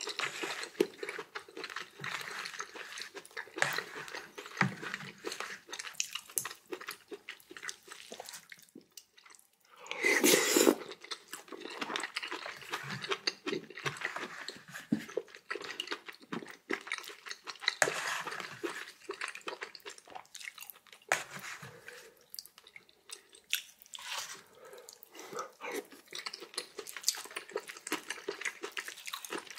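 A person eating close to the microphone: irregular chewing, smacking and small mouth clicks, with one louder slurp about ten seconds in.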